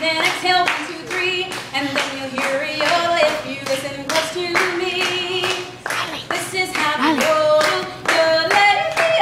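A woman singing and yodeling, her voice jumping back and forth between low and high notes, over hands clapping along in a quick, steady beat. The clapping is the loudest sound.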